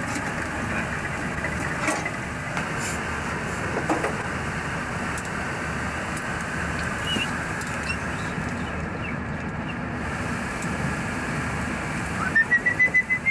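Steady rush of machinery and ventilation noise aboard an Oberon-class submarine, with a few faint clicks. Near the end a budgerigar gives a quick run of about eight short, high chirps.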